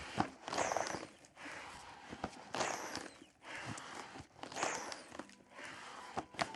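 Accordion bellows pumped in and out with no notes sounding: air rushes through in surges about every two seconds, like slow breathing, with a few small clicks.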